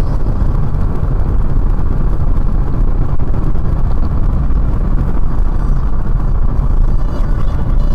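Steady rumble of a moving vehicle, road and engine noise heaviest in the low end, as picked up inside a car by a dashcam.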